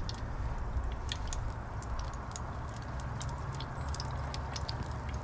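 Battered sea trout pieces frying in very hot oil in an electric deep fryer: a steady sizzle with many small scattered crackles and pops.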